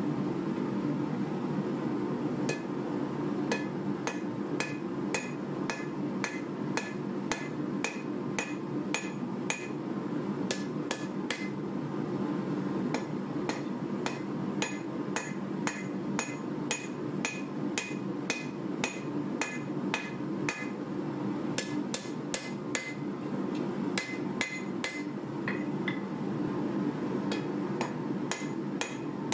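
Hand hammer striking a red-hot bar of 1095 carbon steel on an anvil, forging a knife blade. The blows come about two a second, each with a short metallic ring, with a brief pause about twelve seconds in. A steady low hum runs underneath.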